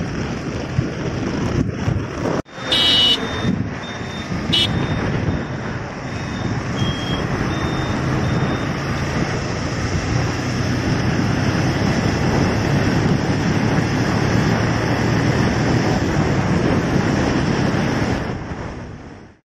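Steady motorbike and road-traffic noise with wind buffeting the microphone while riding. A couple of short high beeps from a horn sound about three and four and a half seconds in, and the sound fades out near the end.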